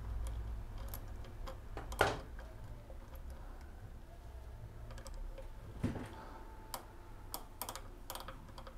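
Scattered small metallic clicks and taps of parts being handled and fitted at a scooter's front wheel sensor bracket, with a sharper click about two seconds in and a quick run of clicks near the end, over a low steady hum.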